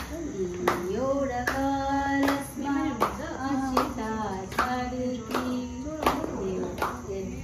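A voice singing a slow melody with held, gliding notes over steady hand claps, about one clap every three quarters of a second.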